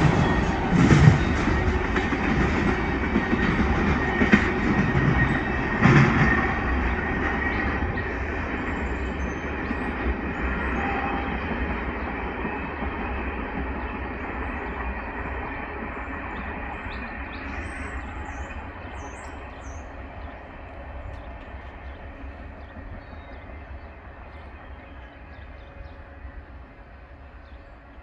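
Tail end of a freight train of oil tank cars rolling away on the rails: wheel rumble and clatter, with a few sharper clacks in the first six seconds, fading steadily into the distance.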